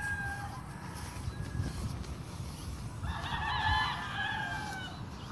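Rooster crowing, with one long call about three seconds in, over a low steady rumble.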